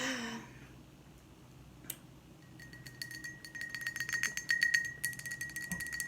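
A metal spoon clinking rapidly against a ceramic bowl or mug, leaving a steady high ring that builds from about halfway through. A brief hummed voice sounds at the very start.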